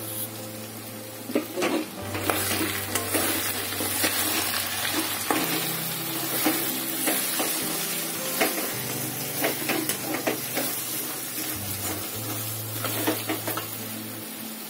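Metal spoon stirring chicken pieces and freshly added ground spices in hot oil in a frying pan, with repeated scraping and knocking against the pan over a steady sizzle.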